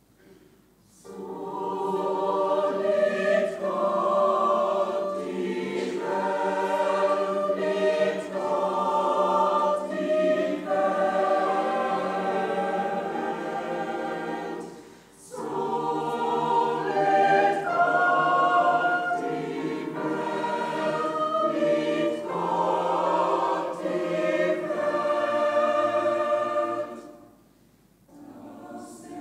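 Mixed choir of men and women singing in parts. The singing starts about a second in, breaks briefly about halfway, and stops near the end before starting again.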